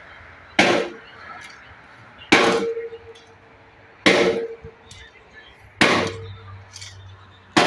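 Concrete pump working through its strokes: a sharp metallic clank with a short ringing tone, repeating evenly about every second and three-quarters, five times.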